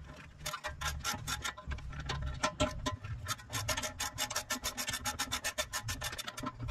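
Hand ratchet clicking rapidly, about eight to ten clicks a second, as a bolt is run in on the front hub and brake assembly.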